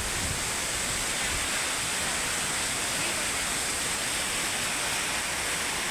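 Steady, even rushing hiss of rain falling, with no breaks or single hits.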